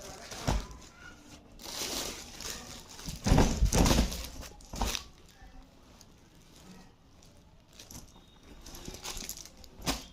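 Parcel packaging crinkling and tearing as it is opened by hand, in irregular rustles, with a few heavier handling thumps about three to four seconds in.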